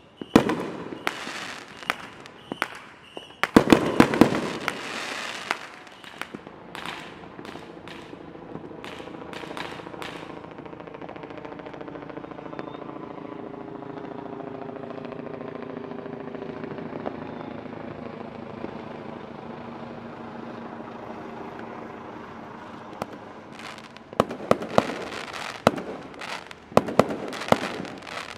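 Fireworks display: a rapid run of sharp cracks and booming bangs, then a lull of several seconds filled by a steady drone, then a new flurry of bangs near the end.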